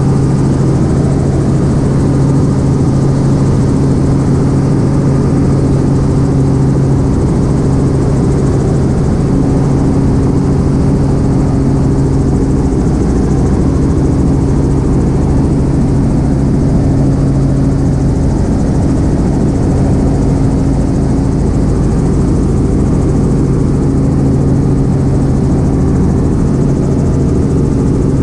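A helicopter's engine and rotors, heard from inside the cabin in flight: a loud, steady drone with a low, even hum.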